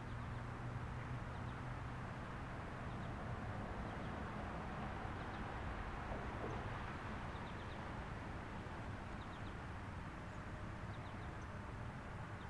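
Quiet outdoor background with no siren sounding: a steady low rumble, a low engine-like hum that fades out over the first few seconds, and faint high chirps now and then.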